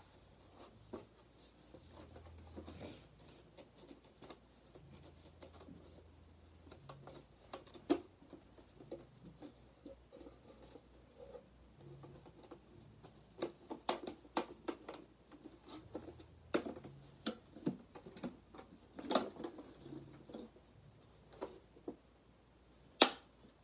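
Hard plastic parts of a Shark Vertex vacuum's clear dust bin being handled: irregular taps, clicks and light knocks, busiest in the second half, with one sharp click near the end.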